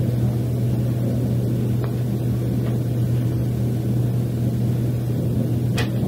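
Cabin running noise of a 100 series Shinkansen under way: a steady low hum and rumble. A faint click comes about two seconds in and a sharper one near the end.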